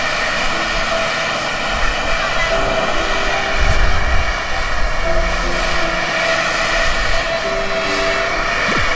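Portable gas camp stove burner running with a steady hiss under a mess tin, with faint voices in the background.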